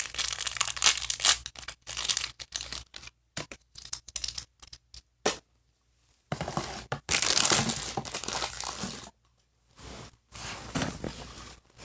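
Thin plastic packaging crinkling and tearing as a small blind bag is pulled open by hand, in uneven bursts with two short pauses; the longest, loudest stretch of crinkling comes about two thirds of the way in.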